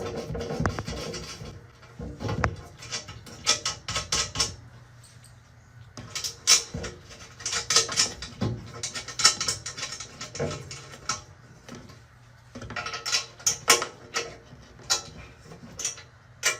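Nuts being tightened onto the bolts of a steel box spring frame with a small hand wrench: bursts of quick metallic clicking and scraping, with short pauses between them.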